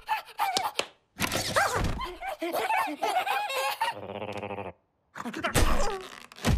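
Cartoon animal vocal effects: a fast run of high-pitched chattering and laughing voices, then a short steady buzzy tone about four seconds in, followed by grunts and knocks as two pugs tussle.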